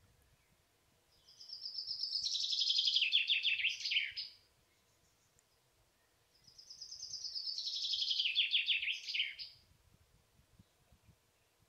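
A songbird singing twice, each song a trill of quick repeated notes lasting about three seconds, falling in pitch and growing louder toward its end, with a few seconds' pause between the two.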